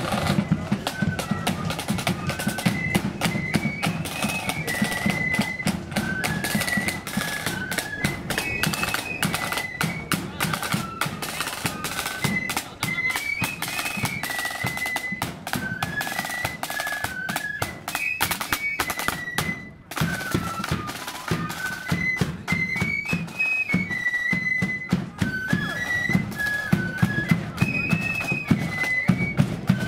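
Marching flute band playing a tune: a high flute melody over rapid snare-drum strokes and a heavy bass-drum beat, with a brief pause about twenty seconds in.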